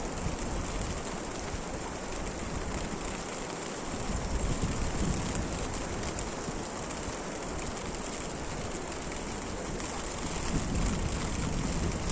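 Steady rain falling, a continuous hiss, with a low rumble that swells about four seconds in and again near the end.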